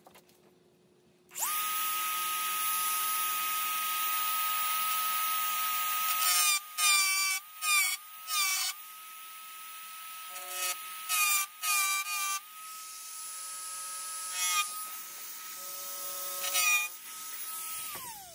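Handheld rotary tool with a small grinding bit, grinding out a square hole in a car's painted metal trunk lid. It starts about a second in with a steady high whine. Through the middle its pitch dips briefly again and again as the bit bites into the metal, and near the end the motor winds down and stops.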